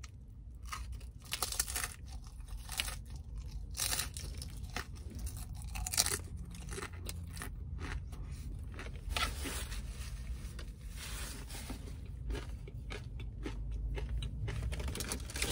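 A person biting into and chewing a crunchy deep-fried taco shell close to the microphone: repeated crisp crunches throughout, over a steady low hum.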